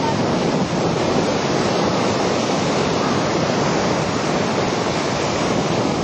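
Steady rush of small surf breaking on a sandy beach, with wind buffeting the microphone.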